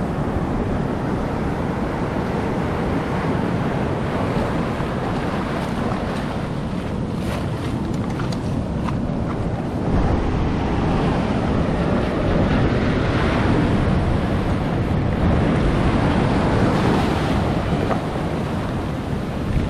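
Surf breaking and washing over a rocky shore, with wind buffeting the microphone; a steady rushing that swells a little about halfway through.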